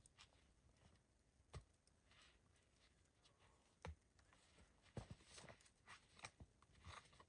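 Near silence broken by scattered faint clicks and knocks, about eight of them, with a small cluster in the second half.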